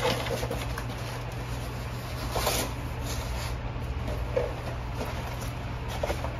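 Cardboard box and plastic wrap rustling and scraping as they are handled, in scattered bursts, the loudest about two and a half seconds in.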